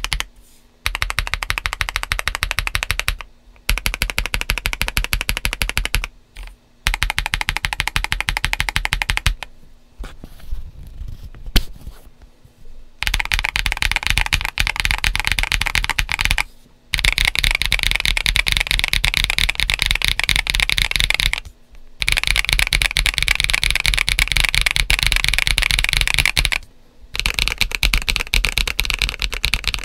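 Mechanical keyboard being typed on fast: a GAS67 kit modded for a poppy, clacky sound, with Akko CS White switches, BoG ABS doubleshot keycaps, PE foam and three layers of Tempest tape. Runs of rapid key clacks with several short pauses, and a few seconds of softer, scattered keystrokes about a third of the way in.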